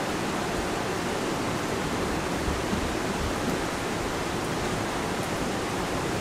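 Heavy rain pouring down and splattering on wet wooden deck boards, a steady, even hiss.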